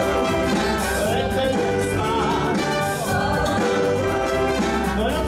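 Live big band playing: brass and saxophone sections over drums, with cymbal crashes about one and three seconds in.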